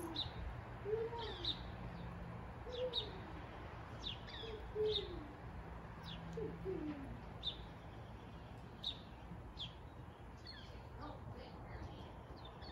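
Small birds chirping again and again in short high notes, with a run of short, low, falling calls about once a second over the first seven seconds.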